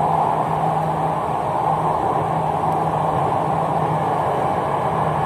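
Cabin noise of a Jakarta MRT train running along the track: a steady rush of wheels and running gear, with a low hum that drops out and comes back.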